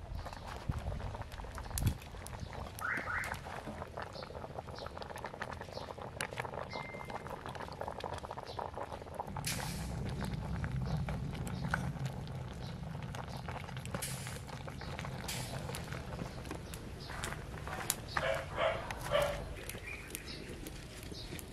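Wood fire crackling in a small folding metal camp stove, with scattered sharp pops. Near the end a dog barks several times in quick succession.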